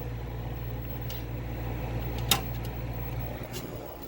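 Steady low electrical hum from a running CRT television on the repair bench, with a few light clicks, the sharpest a little past halfway.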